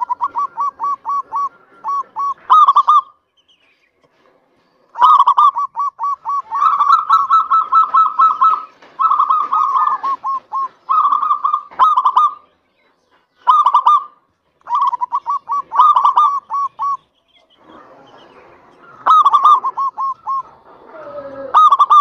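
Zebra dove (perkutut) singing its staccato cooing song: phrase after phrase of rapid runs of short coo notes, with brief pauses between phrases and a gap of about two seconds some three seconds in.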